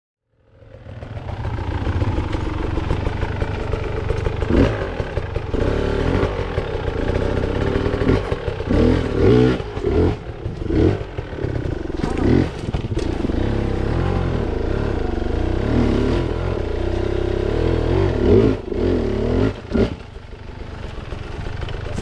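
Enduro dirt bike engine under hard riding, revving up and down repeatedly with brief throttle-offs. Scattered knocks and clatter come from the bike working over rough, rocky ground.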